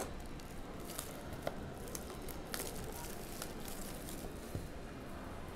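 Scattered crinkles, clicks and rustles of plastic wrapping and cardboard being handled as a sealed basketball-card hobby box is opened, over steady low background noise.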